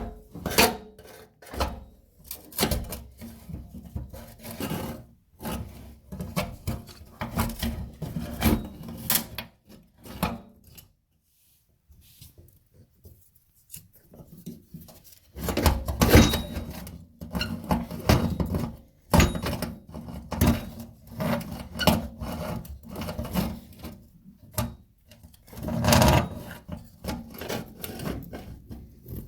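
An old kitchen faucet being worked loose from under the sink: irregular scraping, rubbing and knocking of metal parts against each other and the sink. There is a brief near-silent pause near the middle, then busier scraping and knocks.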